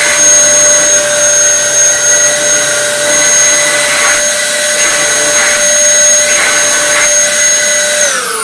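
Dyson DC07 upright vacuum cleaner's motor running at a steady high whine on a test run after reassembly, then switched off near the end and winding down with falling pitch.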